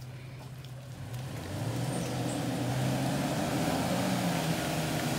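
Off-road 4x4's engine running low and steady, then picking up revs about a second in and pulling under load, its note wavering as the vehicle works over the trail.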